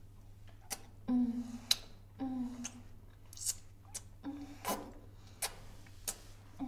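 A woman's short moans, each a brief note sliding slightly down, about once a second, with sharp breaths and soft smacking sounds in between.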